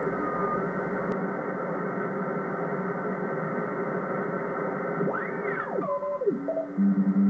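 Kenwood TS-440S HF transceiver receiving CW on the 20-metre band as its tuning knob is turned. Steady band-noise hiss runs throughout, and Morse tones sweep up and down in pitch as stations are tuned past. Near the end it settles on a low Morse tone keyed on and off.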